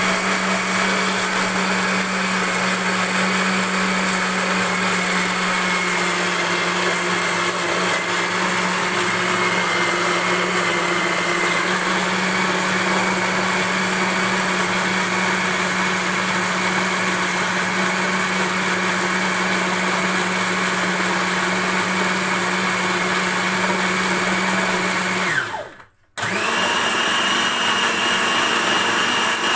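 Countertop blender running steadily, grinding raw rice grains in milk, with a steady motor hum and whine. About 25 seconds in it winds down and stops for a moment, then starts again at a higher pitch.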